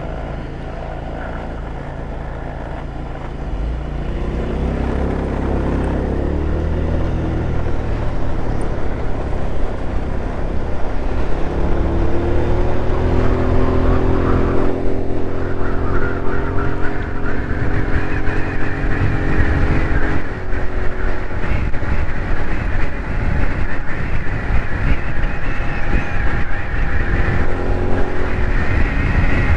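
GY6 scooter's single-cylinder four-stroke engine pulling away, climbing in pitch over a few seconds, then running steadily at cruising speed. A low wind rumble on the microphone grows as it gathers speed.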